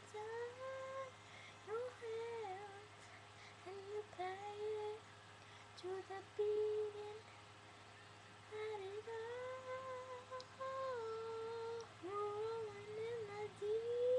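A girl's voice singing wordless, unaccompanied phrases that hum and slide in pitch, a second or two each, with short pauses between.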